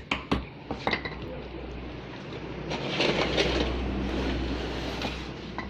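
Shipping parcel being opened by hand: a few quick sharp taps in the first second, then rustling and tearing of the packaging, loudest about three seconds in.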